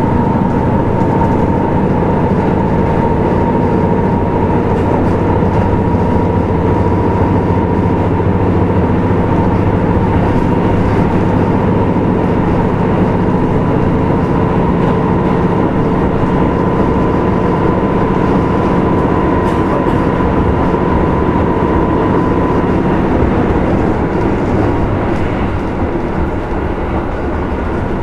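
KiHa 75 diesel-hydraulic railcar running at speed, heard from inside the car: a steady diesel engine drone with the rumble of wheels on rail and a high whine. About 23 seconds in the whine fades out and the sound gets a little quieter.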